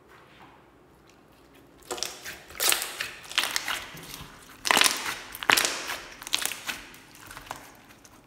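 Hands squeezing and kneading a large mass of glossy slime, making dense runs of clicks and pops as trapped air is squeezed out, starting about two seconds in.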